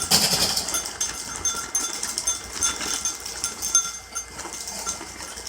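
Pop-Tarts cereal box and its plastic inner bag being handled and opened: crinkling and rustling of packaging, with many short crackles and repeated short high squeaks.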